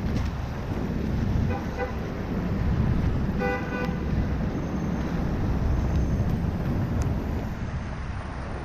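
A vehicle horn honks: a quick, faint double toot about a second and a half in, then one louder, slightly longer toot about three and a half seconds in, over a steady low rumble of wind on the microphone and street traffic.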